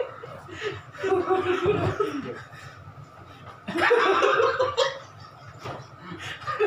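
A group of men laughing and chuckling, in bursts with short pauses between, the loudest about four seconds in.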